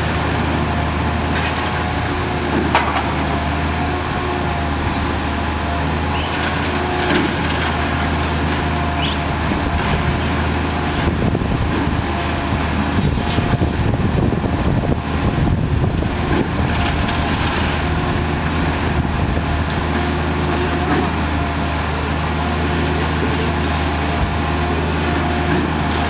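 Concrete pump truck's diesel engine running steadily with a constant low hum, driving the hydraulics as the boom folds up.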